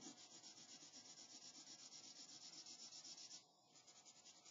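Faint scratchy rubbing of a felt-tip highlighter shading back and forth across paper, several quick strokes a second. It breaks off briefly about three and a half seconds in, then resumes more faintly.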